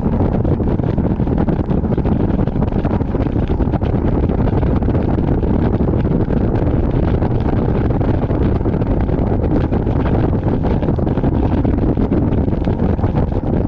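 Heavy wind rush buffeting the microphone as a bass boat runs at full speed, with its outboard motor running steadily underneath. A dense, steady roar with no letup.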